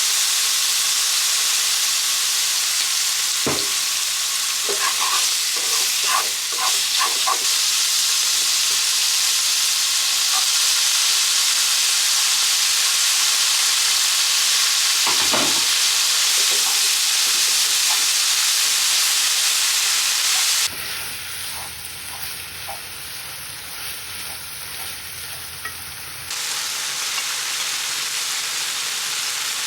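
Food frying and sizzling in a pan, with a few clicks and scrapes of a cooking utensil against the pan. About two-thirds of the way through, the sizzle drops quieter for several seconds, then comes back.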